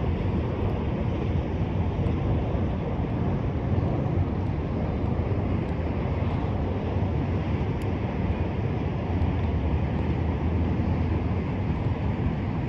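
Wind buffeting the microphone on open water: a steady, low rumbling noise with no breaks.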